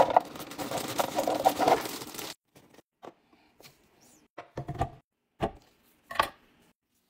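Groceries being put away in a fridge: packaging crinkling and rustling for about two seconds, then about three separate knocks as items are set down on the shelves.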